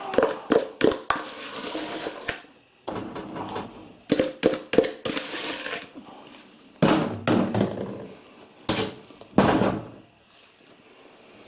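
Thick cake batter being scooped and scraped out of a mixing bowl into a fluted baking dish, by hand and then with a plastic bowl scraper. A run of sticky knocks and scrapes is followed by a few longer, louder scraping strokes.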